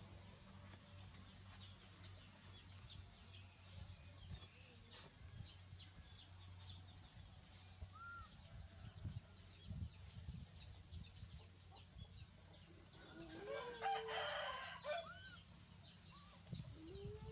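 Birds calling: many short, high chirps throughout and one louder, longer call about thirteen to fifteen seconds in, over a low steady hum.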